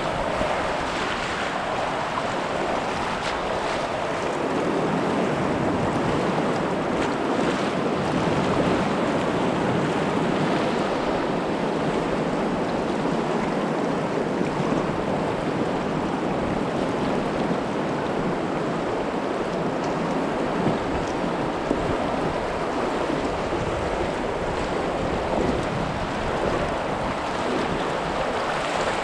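Fast, choppy river water rushing and splashing around a small pontoon boat drifting through a riffle, a steady, unbroken rush.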